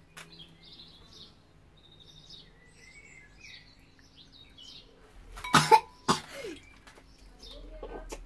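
A child coughs twice in quick succession a little over halfway through, over light chirping of small birds throughout.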